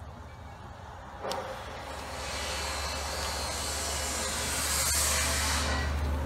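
A large pot of soup boiling hard on a burner: a steady low rumble under a loud hiss that swells from about two seconds in and peaks near the end. A light knock comes about a second in.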